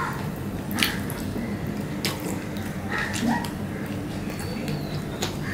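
Eating by hand: fingers squishing rice and curry on a steel plate with a couple of sharp clicks against the metal, then wet chewing and lip smacks.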